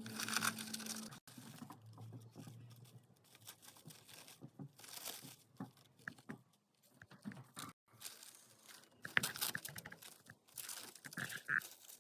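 Hamster rustling and crinkling its cage bedding as it pushes and digs through it, in irregular bursts of crackling with short pauses between.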